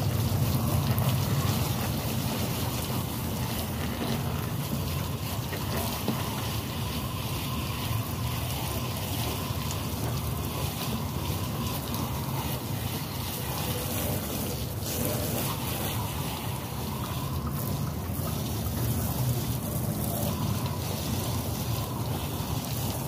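Water from a hose spraying and running inside the open cabinet of a Trane 15-ton packaged rooftop unit, a steady splashing hiss over a steady low rumble.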